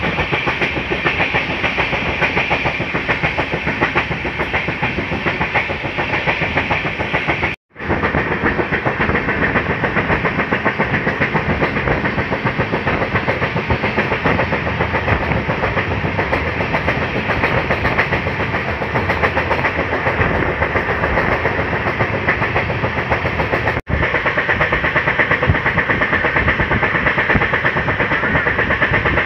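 Passenger train running at speed, heard at an open coach door: a steady rumble and rapid clatter of wheels on the rails. The sound cuts out for a moment twice, about eight seconds in and near the end.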